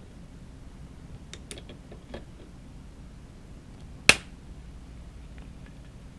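Pliers working a spring hose clamp on a dishwasher inlet valve hose: a few light metallic clicks, then one sharp snap about four seconds in.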